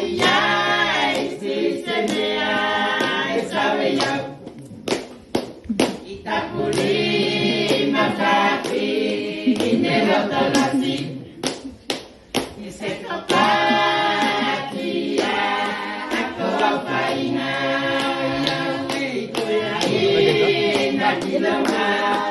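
Group of voices singing a song together without instruments, with runs of sharp hand claps between phrases.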